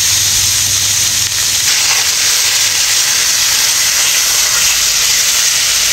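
Ground beef and sliced onions sizzling in a hot frying pan as the meat is broken up and stirred with a metal spoon: a steady, loud frying hiss.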